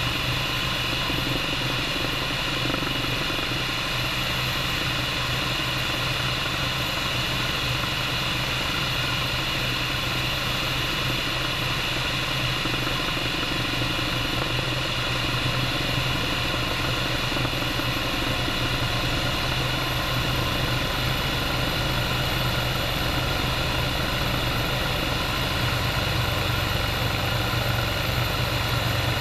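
Bell 430 helicopter's twin turboshaft engines and rotor running steadily: a low rotor hum under a steady high turbine whine, with no change in pitch or level.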